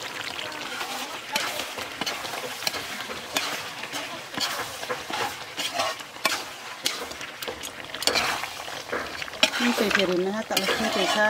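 A metal ladle scraping and knocking against a large metal wok as pork and radish curry is stirred, the curry sizzling underneath. The scrapes come irregularly, several a second, over a steady frying hiss.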